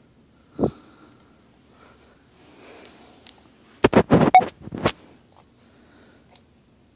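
Standard poodle sniffing right at the microphone: a quick run of about six loud sniffs about four seconds in. A single knock sounds just over half a second in.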